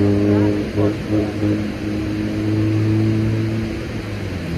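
Steady low-pitched machine hum, like an engine running, with a brief break and a few faint knocks about a second in.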